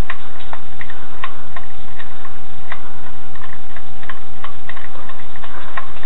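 Irregular light metallic clicks, a few a second, from a lug wrench turning a lug nut off an alloy wheel.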